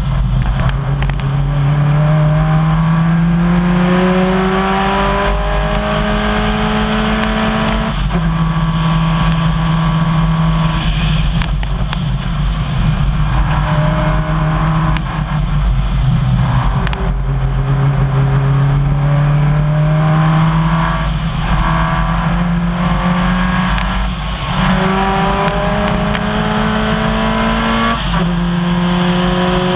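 Rally car engine at full throttle on a gravel stage, its pitch climbing through each gear and dropping back at each shift about every two to four seconds, over a steady rush of gravel and road noise heard from inside the car.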